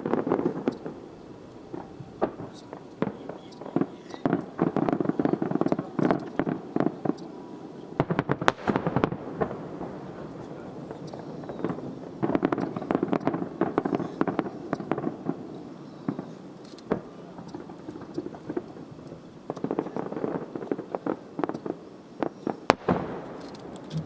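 Aerial fireworks crackling in waves: bouts of rapid sharp crackles that come and go several times, with one loud single crack near the end.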